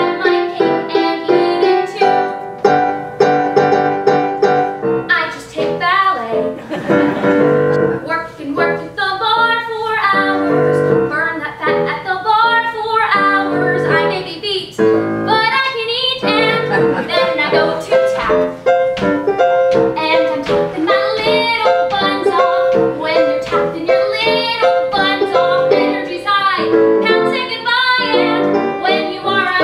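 A young female singer performing a comic musical-theatre song with live piano accompaniment.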